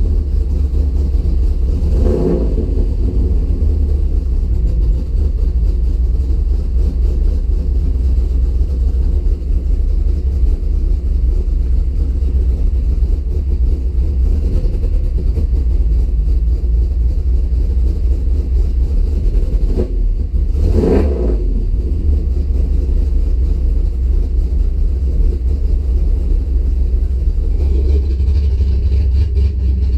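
Car engine running at a rough idle, a steady low rumble with two short bursts of sound, about two seconds in and about twenty-one seconds in.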